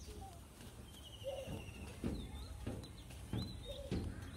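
Small birds chirping, with one short rapid trill about a second in, over a steady low background and a few soft thuds.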